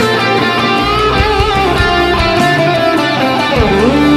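Background music led by guitar, with one note bending down and back up near the end.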